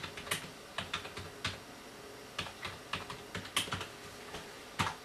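Computer keyboard being typed on: irregular runs of keystrokes with a short pause about two seconds in and one sharper keystroke near the end.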